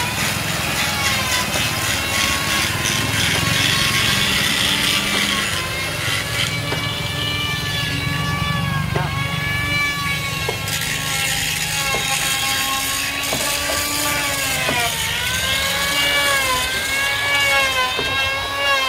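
A motor running, its pitch rising and falling and dipping several times near the end, with a few sharp knocks.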